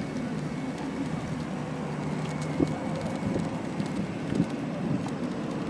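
Electric skateboards and an electric unicycle rolling over a paved path, a steady rush of wheel and wind noise with a faint motor hum. A few sharp knocks come from bumps in the pavement.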